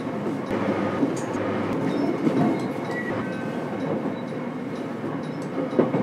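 Running noise inside a JR Kyushu 813 series electric train car (KuMoHa 813-302): a steady rumble of wheels on rail, with a few knocks from the track, the loudest near the end.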